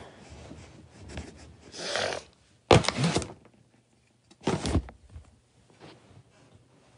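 A woman crying: loud, ragged sobs and gasping breaths in a few bursts, about two, three and nearly five seconds in, with handling noise from the phone she is holding.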